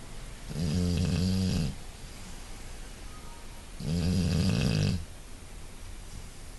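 Snoring: two long, low-pitched snores about three seconds apart, each lasting about a second.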